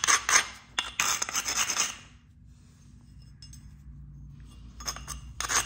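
An abrading stone rubbed in quick back-and-forth strokes along the edge of a heat-treated Flint River chert blade, grinding down a striking platform before the next flake is driven off. The scraping stops about two seconds in and starts again near the end.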